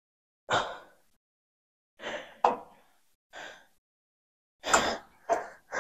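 A man's forceful breaths and grunts of effort, about six short bursts a second or so apart, as he strains through a heavy set of weight-training reps. A sharp click comes about two and a half seconds in.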